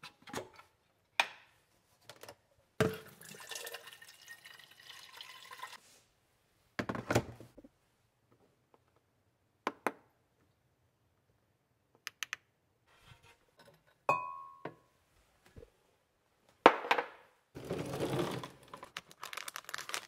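Kitchen handling sounds around an electric gooseneck kettle: clicks and knocks as it is plugged in and handled, water running for about three seconds, and a short electronic beep about two-thirds of the way through. A sharp knock follows, then rummaging through a drawer of tea packets near the end.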